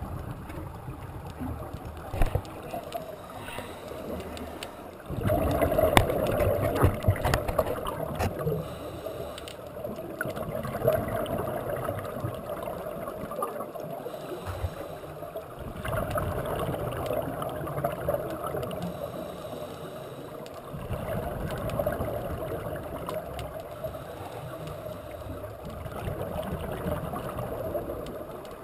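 Scuba diver's exhaled bubbles from the regulator, gurgling and rumbling in repeated bursts several seconds apart with quieter gaps between, heard underwater through a GoPro housing, with a few sharp clicks.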